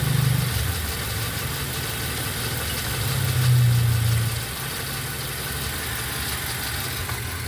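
Toyota Avanza car engine idling, swelling louder for about a second around three seconds in before settling back. The engine is running as a check on a misfire after its four spark plugs were replaced.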